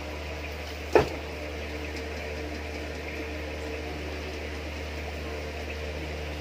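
Steady low hum from aquarium equipment, with one sharp knock about a second in.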